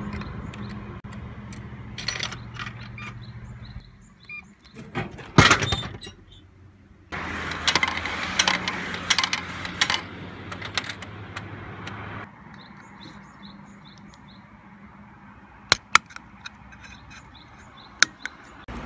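A coin-operated drink vending machine in use: coins clink and the mechanism clatters over a low hum that stops about twelve seconds in. A few sharp clicks near the end come from a steel can's ring-pull being opened.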